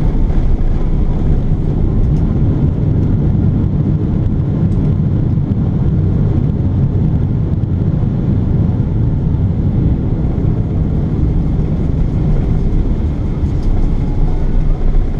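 Cabin noise inside a Boeing 777-300ER rolling on the ground after landing: a steady low rumble.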